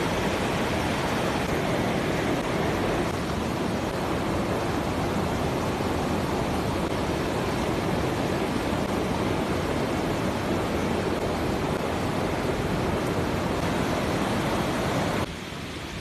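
A fast-flowing river rushing, a steady even noise of water with no break. About a second before the end it drops to a lower level.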